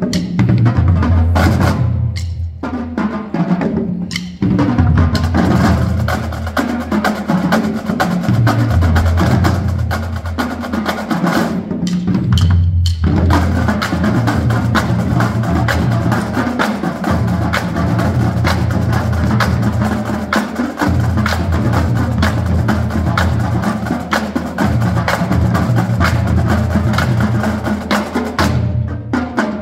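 School drumline playing marching snare drums and bass drums together: rapid snare strokes over low bass-drum notes, with brief breaks about 2 and 4 seconds in and a longer one around 12 seconds in.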